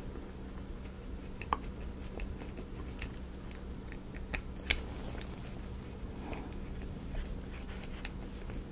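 Faint, scattered clicks and light taps of small laser-cut wooden model parts being handled and fitted together, with a sharper click about halfway through, over a steady low hum.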